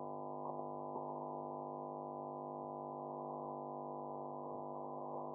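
Steady, faint electrical hum with many evenly spaced overtones, the kind of interference a poorly suited external microphone picks up, with a couple of faint ticks in the first second.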